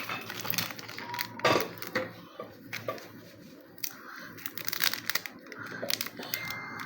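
Foil Pokémon TCG booster pack crinkling and rustling as it is handled, with scattered small clicks and taps.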